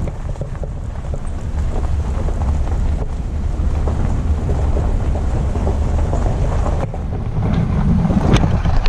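Wind buffeting the microphone: a loud, steady low rumble with scattered faint knocks, swelling near the end before cutting off abruptly.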